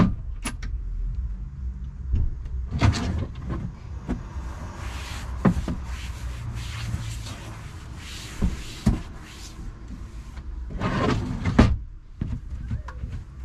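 A cloth rubbing and wiping over a camper van's built-in wooden drawers and panels, with several knocks as drawers and cabinet parts are handled.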